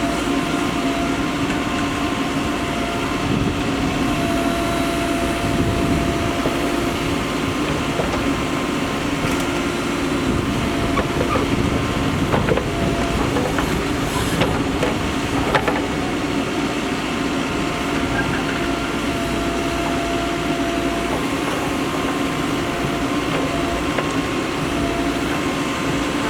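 Mahindra EarthMaster SX backhoe loader's diesel engine running steadily while it works, with a whine that comes and goes and a few sharp knocks about halfway through.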